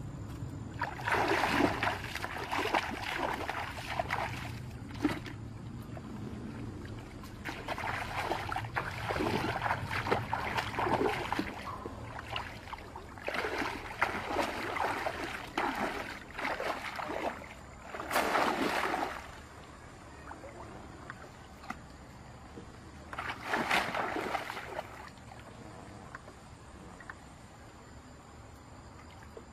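Shallow muddy water splashing and sloshing in several irregular bursts, separated by quieter stretches, as a person wades and works a bamboo plunge-basket fish trap down into the water.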